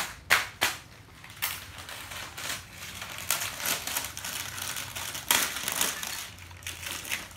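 Plastic bag crinkling and rustling in a series of crackly rustles, after a couple of sharp clicks at the start.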